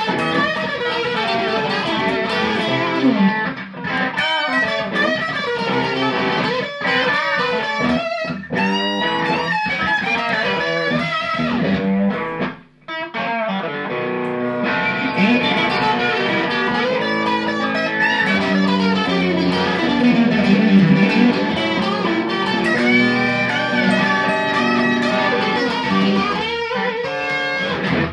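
Fender Sixty Six electric guitar played through an amplifier, with picked single-note lines and chords. The playing stops briefly about halfway through, then resumes with longer, held notes.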